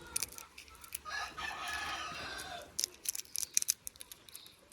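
A rooster crows once, a call of just under two seconds that begins about a second in. Sharp clicks and rustles come before and after it, the loudest of them in the second half.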